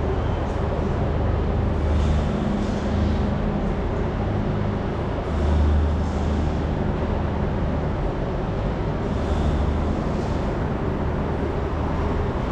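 Steady road traffic noise, with a low engine hum that swells and fades several times as vehicles pass.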